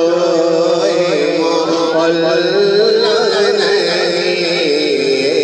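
A man singing a naat, an Urdu devotional poem in praise of the Prophet, into a microphone, drawing out long wavering notes.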